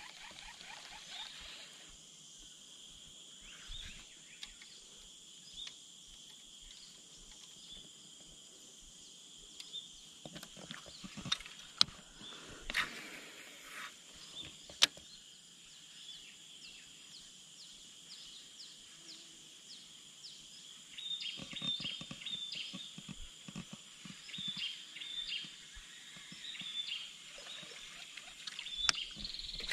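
Outdoor nature ambience: a steady high-pitched insect drone, with a few sharp clicks around the middle and repeated short bird chirps coming in about two-thirds of the way through.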